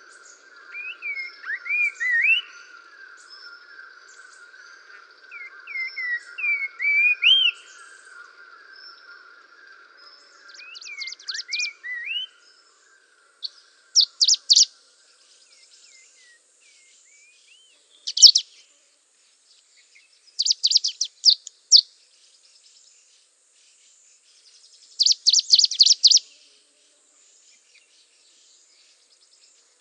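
Birds chirping: for the first dozen seconds, short rising chirps repeat over a steady background chorus. After that come separate bursts of rapid high trills every few seconds, with quiet in between.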